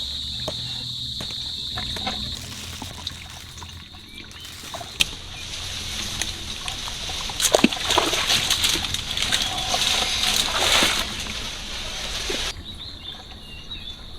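Water splashing and sloshing, loudest in the middle stretch, with a steady high insect-like buzz at the start and again near the end.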